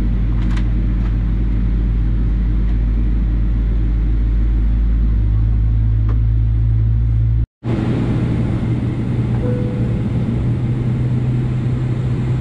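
Cabin sound of a Boeing 777-300ER taxiing, its GE90 engines at idle: a steady low rumble and hum. It drops out for an instant about halfway through and then carries on unchanged.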